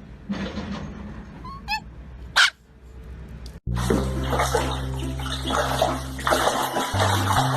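A dog's brief whimpering call and a sharp click. After a sudden cut, background music with a steady bass line plays over a loud hissing noise.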